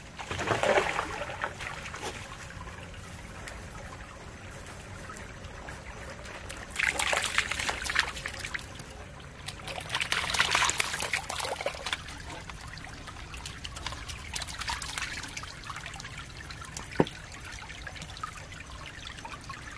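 Shallow creek trickling over stones, with several bursts of splashing as a dog runs through the water. A single sharp click near the end.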